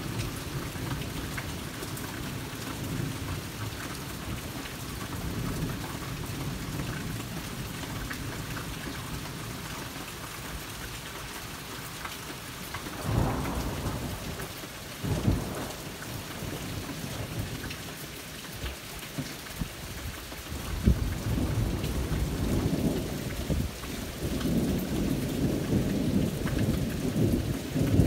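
Steady rain falling and dripping off a house's roof edge and eaves. About halfway there are two sharp knocks. From about two-thirds of the way in, a low rumble of thunder builds and grows louder near the end.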